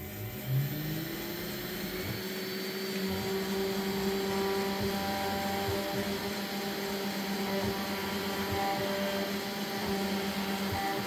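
TwoTrees TTC H40 CNC router with its 500 W spindle running steadily while the end mill carves into black acrylic. Whining tones from the Nema 23 stepper motors shift in pitch as the axes move, one rising early on.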